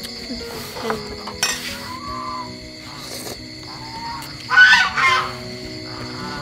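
Soft instrumental background music with eating sounds from the soup bowls: a couple of short slurps, then a louder slurp about four and a half seconds in.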